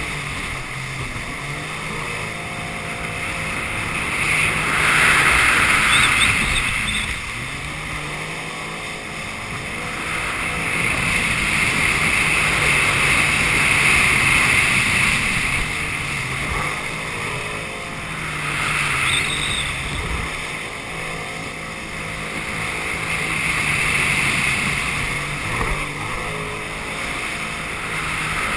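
Jet ski engine running under way across choppy water, its sound swelling and easing several times as the throttle opens and closes, with a steady hiss of water spray and wind over the microphone.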